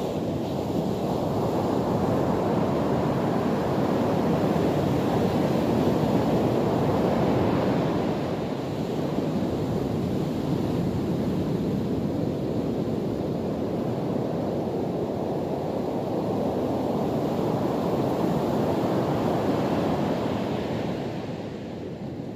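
Ocean surf breaking and washing up a sandy beach: a steady rushing wash that swells and eases in slow surges, with wind buffeting the microphone.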